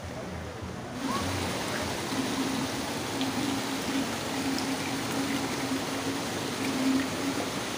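Water pouring from an inlet pipe into a trout rearing tank, a steady splashing rush that comes in about a second in.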